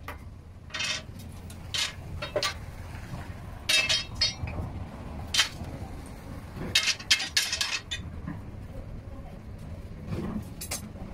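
Pieces of scrap steel clanking and clinking against one another as they are shifted and pulled from a pile, in irregular single clanks and quick clusters with a short metallic ring. A low steady hum runs underneath.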